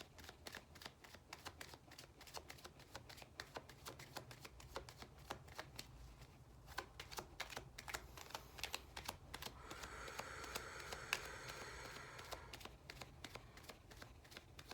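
Tarot cards being shuffled and handled by hand: a faint, rapid, uneven patter of card-edge clicks, with a steadier rustle from about ten to twelve seconds in.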